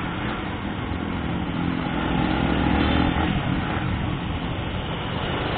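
Motorcycle engine running as the bike rides along, with steady wind and road noise.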